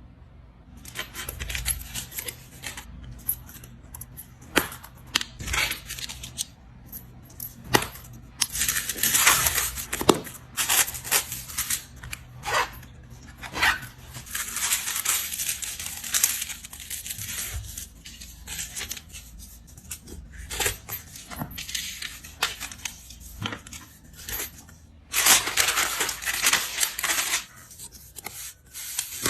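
Plastic parcel packaging being handled and torn open: irregular crinkling and rustling with sharp clicks and snaps, louder in spells around the middle and near the end.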